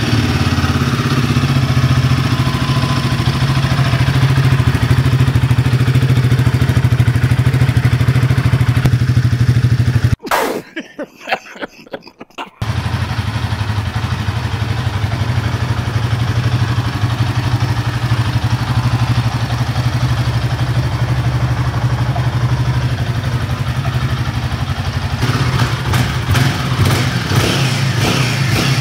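Royal Enfield Himalayan 450's liquid-cooled single-cylinder engine running at a steady idle on its first cold start. The sound drops away for about two seconds a little after ten seconds in, then resumes, and grows more uneven near the end.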